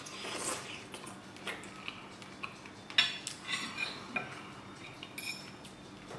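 Metal fork clinking and scraping against a dinner plate, a few sharp clinks from about three seconds in, the first the loudest.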